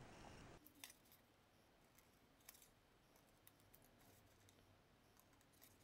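Faint, irregular snips of scissors cutting a zigzag into a strip of paper.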